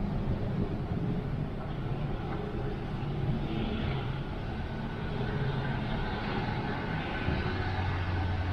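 Steady low mechanical rumble, like a large engine or vehicle running, with a faint high line of whine in the second half.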